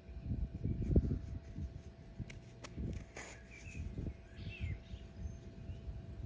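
Outdoor ambience: low, uneven rumbling on the microphone with a faint steady hum, and a few short chirps from a small bird midway through.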